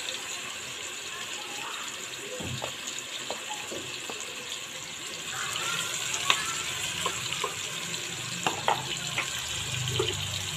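Marinated chicken pieces frying in oil in an aluminium kadai: a steady sizzle with scattered sharp pops, more of them in the second half.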